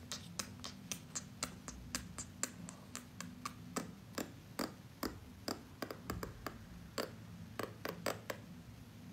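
Quiet, irregular clicks and taps, about three or four a second, over a low steady hum.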